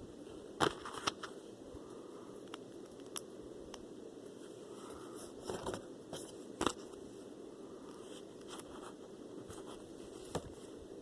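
Small plastic building pieces being handled and pressed together, giving scattered sharp clicks and snaps over a low steady room hum.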